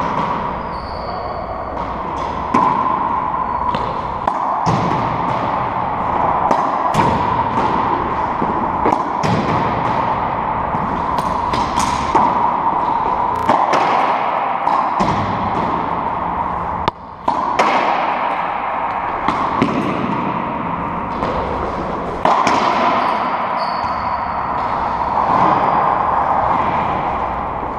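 Racquetball rally: the hollow rubber ball sharply struck by racquets and smacking off the court's walls and floor, about one hit every second or two, each one echoing in the enclosed court over a steady background hum.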